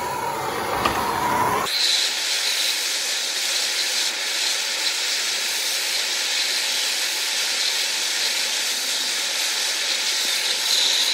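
Hand-held gas torch burning with a steady hiss as its flame heats the aluminum engine case around a tappet block. The sound shifts abruptly about two seconds in, then holds steady.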